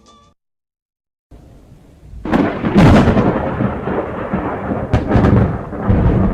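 The last notes of a song fade out, then after a second of silence a thunderstorm sound effect begins: a loud, deep rumbling of thunder with rain hiss and a few sharp cracks.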